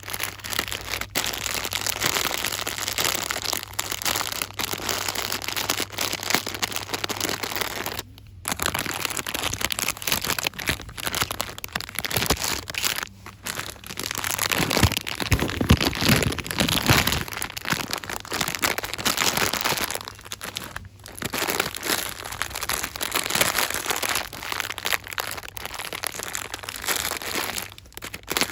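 Dense, fast crinkling and crackling of store items and their packaging, rustled by hand close to the microphone, with a few brief pauses. The handling is heaviest a little past the middle.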